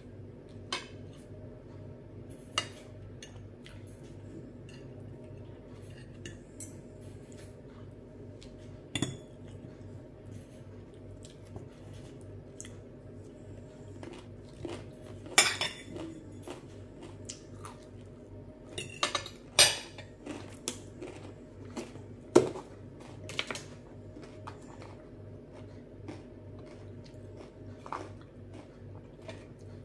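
Metal fork and knife clinking and scraping on a glass plate, in scattered sharp clicks with chewing between them; the loudest clinks bunch together in the middle.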